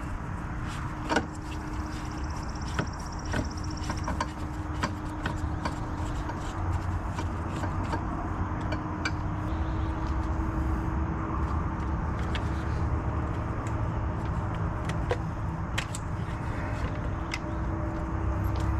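Scattered sharp metal clicks and clinks of hand tools working on a car's engine parts, over a steady hum.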